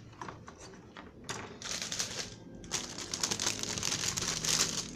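Clear plastic bag crinkling and rustling as a bagged sheet of plastic model-kit runners is picked up and handled, with light clicks of the plastic parts. It starts as a few scattered clicks and turns into continuous crinkling from about halfway through.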